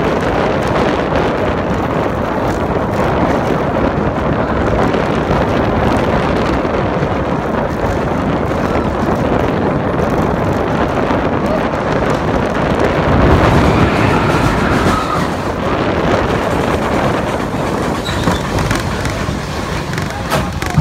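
Steel roller coaster train running along its track, heard from a rider's seat: a steady rumble of wheels on rail mixed with wind rushing over the microphone. It swells about thirteen seconds in and eases off near the end.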